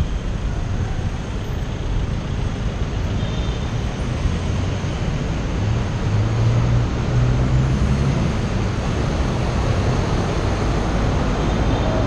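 Wind rushing over a helmet-mounted action camera's microphone while cycling, mixed with the road noise and engines of surrounding traffic. A low hum grows louder about six seconds in and eases off near eight seconds.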